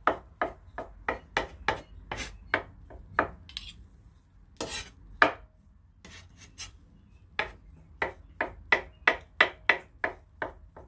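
A chef's knife chopping hard-boiled eggs on a wooden cutting board, about three quick knocks a second. The chopping breaks off for a few seconds in the middle, with a couple of scraping knocks, then picks up again at the same pace.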